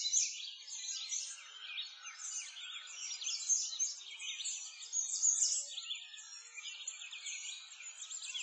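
A dense chorus of small songbirds chirping, many short, high, quickly sweeping notes overlapping without a break.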